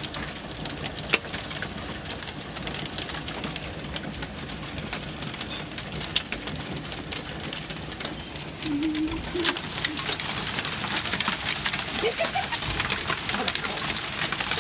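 Hail and rain falling, many small sharp impacts ticking over a steady hiss; the downpour gets heavier about nine seconds in.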